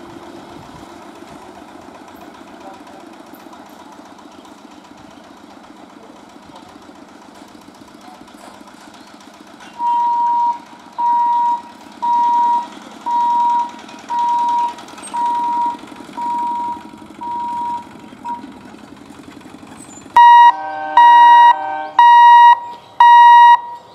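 An EMU electric local train runs with a steady rumble. About ten seconds in, a level-crossing warning beeper starts, with a clean beep roughly once a second that fades slightly. Near the end a louder, harsher beeper sounds a little faster.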